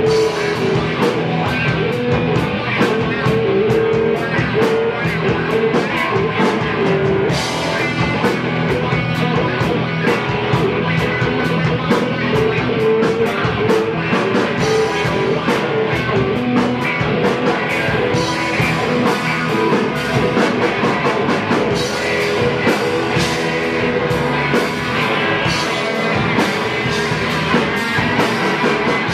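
Live rock band playing loud, with electric guitars, electric bass and a drum kit keeping a steady driving beat.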